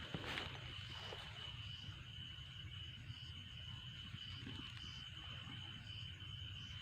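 Night insects calling: one holds a steady high trill, and a second call pulses about twice a second above it. A brief knock sounds just after the start.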